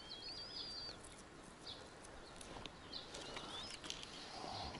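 Faint birdsong: short, high, warbling whistled phrases at the start and again about three seconds in.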